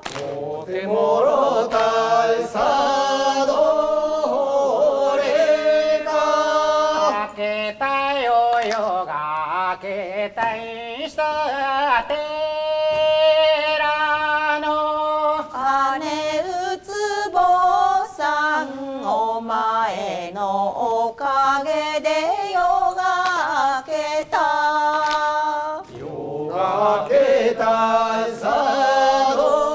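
A group singing a Japanese folk song in a chanting style, the voices rising and falling through long held notes with short breaks between phrases.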